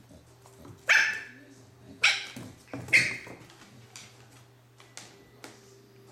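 Boston Terrier puppy barking: three sharp, high barks about a second apart, then a few faint yaps.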